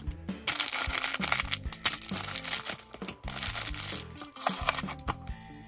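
Thin clear plastic bags crinkling as a toy gear and a candy packet are handled and unwrapped, over background music with a steady bass line.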